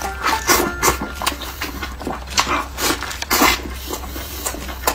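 Close-miked eating sounds: chewing and wet mouth noises coming in short, irregular bursts, over a steady low hum.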